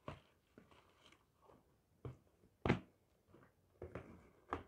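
Irregular knocks and thuds of objects being handled and set down on a table, about eight in all, the loudest just past the middle.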